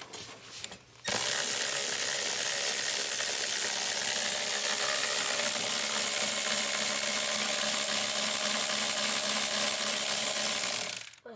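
Handheld power tool running steadily for about ten seconds, starting abruptly about a second in and cutting off just before the end, while spinning out a bolt.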